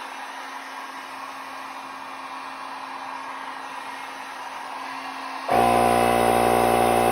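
Steady rush of air, then about five and a half seconds in an air compressor's motor cuts in abruptly and runs loudly at a steady speed.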